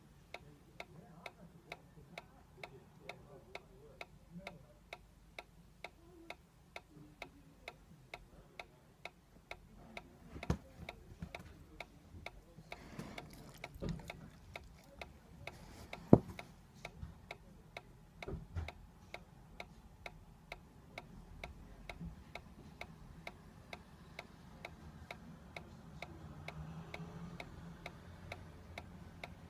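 Solar-powered dancing cactus toy ticking steadily about twice a second as its swinging mechanism drives the rocking. A few scattered knocks, the loudest about sixteen seconds in.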